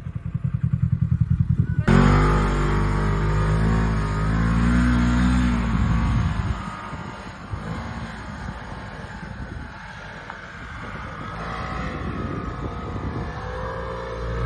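Off-road side-by-side buggy's engine running and revving, its pitch rising and falling. It comes in suddenly louder about two seconds in and drops lower after about six seconds.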